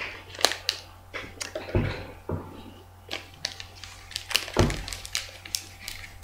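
Scissors and a plastic sweet packet being handled and cut open: irregular sharp clicks and crinkles, with two heavier thumps, about two and four and a half seconds in.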